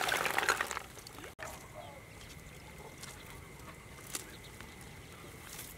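Muddy water sloshing and splashing as a wet mesh snail trap is handled in a flooded rice field, stopping abruptly about a second in. After that, a faint outdoor background with a thin steady high tone and a couple of small ticks.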